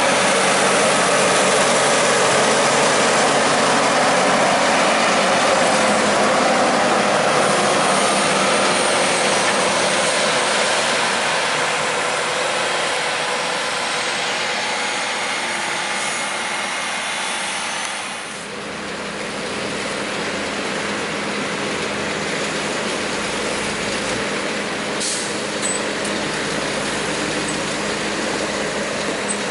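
Diesel tractor engines of New Holland tractors working hard as they push and pack a corn silage pile. After a sudden change about 18 seconds in, the sound turns to a steadier, somewhat quieter tractor engine as a JCB Fastrac pulls a loaded silage wagon.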